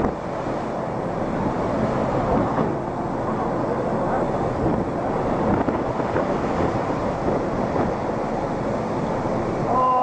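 Storm wind and heavy seas breaking over a ship's deck: a dense, steady rush of water and wind, with wind buffeting the microphone.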